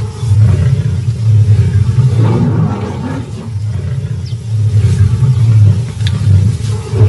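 Lioness growling in long, low rumbles one after another, with brief pauses between them, as she guards her kill against mobbing baboons.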